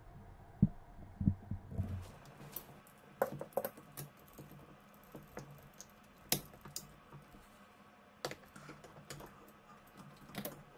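Plastic and metal hose fittings clicking and tapping as they are handled and fitted onto a washing machine's water tap, with a few low thumps in the first two seconds and scattered sharp clicks after.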